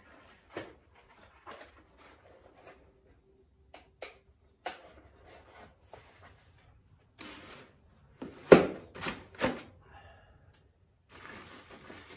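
Cardboard packaging and plastic-bagged hardware being handled: a small box of solar panel Z brackets and mounting screws is opened and closed, with rustling and scattered clicks. A cluster of sharper knocks comes about two-thirds of the way through.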